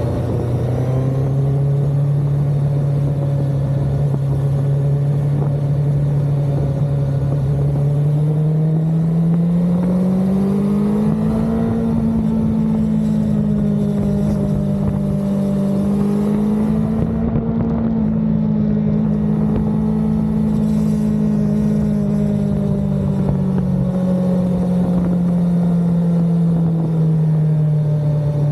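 Suzuki GSX-S1000GX's inline-four engine running steadily while the motorcycle is ridden. The engine note climbs in pitch from about eight to twelve seconds in, holds, then eases back down over the last several seconds.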